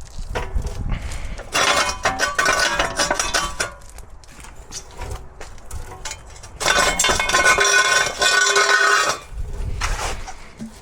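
Metal tools and parts clinking and clattering in two bursts of a couple of seconds each, about two seconds in and again near seven seconds in.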